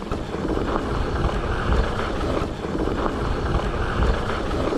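Mountain bike rolling downhill over a loose, dry dirt and rock trail: a steady rumble of tyres and bike, with wind buffeting the microphone.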